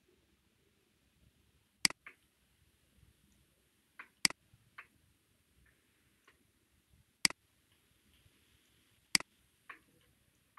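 Computer mouse button clicks: four sharp clicks a couple of seconds apart, several followed by a softer click a moment later.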